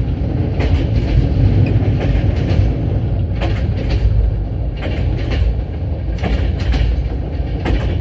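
Train wheels clacking over rail joints, with the steady low rumble of a moving railway carriage. The clacks come every second or so, some in quick pairs: the old-style clickety-clack of jointed track.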